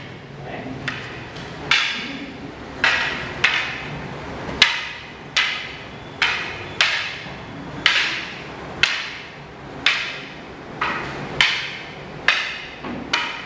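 Wooden aikido training weapons, a bokken and a jo, clacking together in a steady series of sharp knocks, about one a second and sometimes two in quick succession, each with a short ringing tail.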